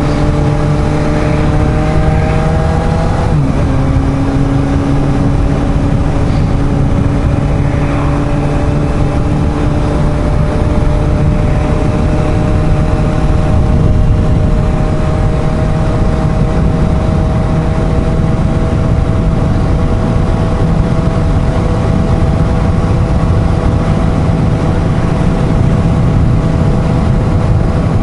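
Suzuki GSR750's inline-four engine pulling along at road speed under heavy wind rush. About three seconds in the engine note drops with a gear change up, then climbs slowly and steadily as the bike gathers speed.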